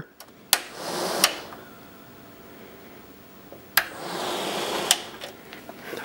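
12-volt RV roof vent fan run twice on a bench test, once in each direction, through its forward/reverse rocker switch. Each run starts with a click, the motor and blades whir up for about a second, and a second click switches it off; a faint whir of the blades coasting remains between the runs.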